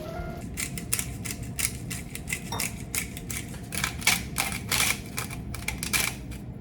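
Rapid, irregular sharp clicks and taps from kitchen handling during food prep, several a second, starting about half a second in.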